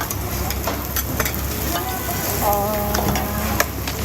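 Food sizzling as it fries at a street food stall, with scattered short clicks and scrapes of a cooking utensil.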